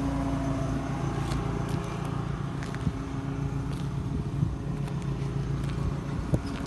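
A motor running steadily, a low hum with a steady pitch, with a few light clicks and knocks over it.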